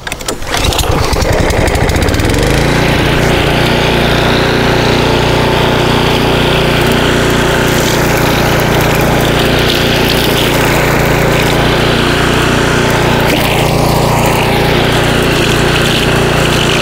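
Dirty Hand Tools walk-behind string trimmer's 149cc Kohler XT675 engine picks up speed over the first two seconds, then runs steadily at full throttle as its spinning line cuts through thick, tall weeds.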